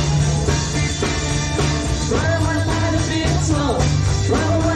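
Live rock band playing with drum kit, electric guitars and keyboard over a steady bass line; a gliding melody line comes in about two seconds in and again near the end.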